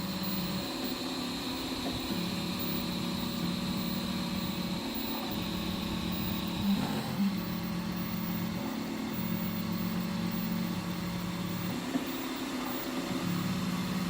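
3D printer's stepper motors whining while printing flexible filament, the pitch jumping between a few steady tones as the print head changes speed and direction, with a couple of brief louder chirps.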